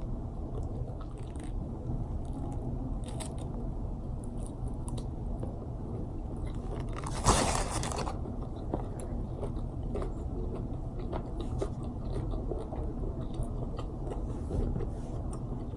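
A person biting and chewing a crispy fried chicken sandwich close to the microphone, with small crunches throughout and one loud crunchy bite about seven seconds in.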